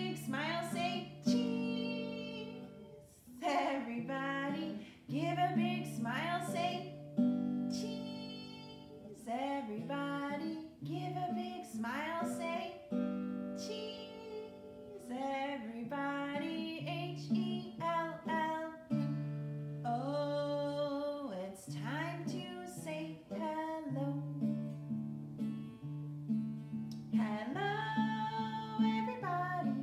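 A woman singing to her own strummed acoustic guitar, in steady sung phrases over repeated chords.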